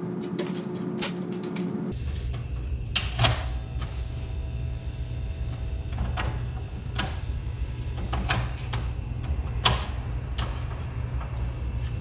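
Sharp clicks from a Marantz DV4200 DVD player's front-panel buttons and jammed disc-tray mechanism as the open button is tried, with a faint whir for a couple of seconds after the first clicks. A steady low hum starts about two seconds in.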